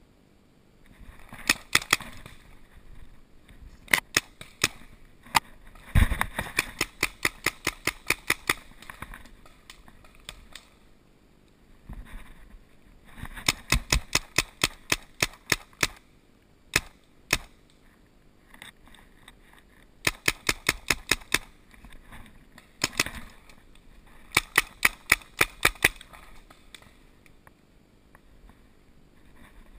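Paintball markers firing: several rapid volleys of sharp pops, a few shots a second, with single shots in between.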